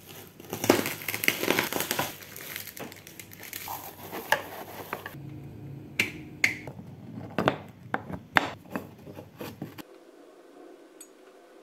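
Plastic parcel wrapping crinkling and crackling as it is slit open with a box cutter, for about five seconds. Then a few sharp metal clicks and clinks, and it goes quieter near the end.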